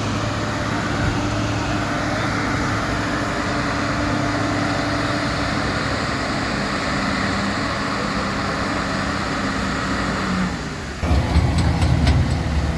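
JCB 3DX backhoe loader's diesel engine running steadily under load. Near the end the sound changes abruptly to a lower, louder rumble with clanks and rattles.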